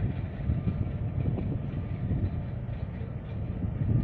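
Wind buffeting the microphone: an uneven low rumble that rises and falls without pause.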